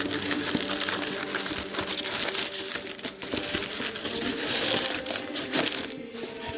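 Cardboard shipping box being torn open by hand: continuous ripping and crinkling of the cardboard, dense with small cracks, easing off near the end.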